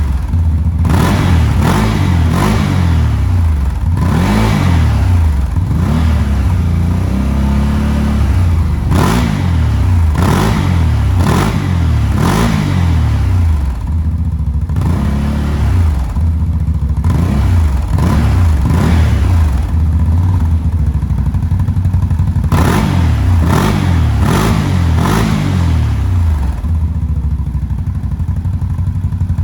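CFMOTO CForce 1000 XC ATV's V-twin engine being blipped over and over, revving up and dropping back about once a second, then settling to a steadier idle near the end.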